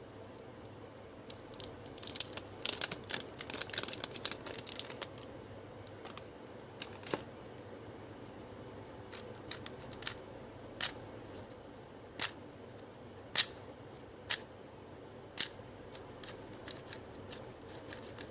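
Unboxing a speed cube: packaging is handled, crinkling and tearing for a few seconds, then a series of single sharp plastic clicks about a second or two apart.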